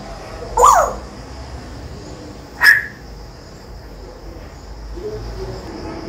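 African grey parrot giving two short, loud calls about two seconds apart, the first sliding in pitch and the second sharper and higher.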